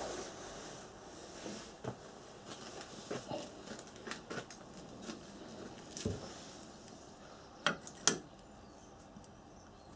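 Light clicks and taps of a magnet ring being handled and tried for fit inside a steel flywheel rotor held in a lathe chuck, with two sharper clicks in quick succession about three-quarters of the way through.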